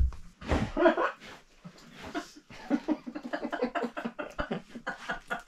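A soft thump at the start, then people laughing quietly: a short voiced laugh, then a run of quick, stifled chuckles.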